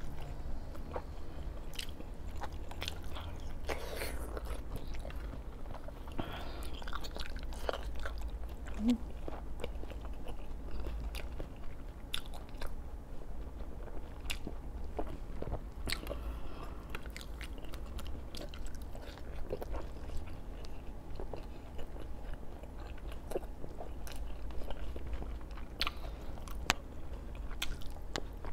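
Close-up chewing and biting of braised pork belly, with frequent small wet clicks and crunches from the mouth. A steady low hum runs underneath.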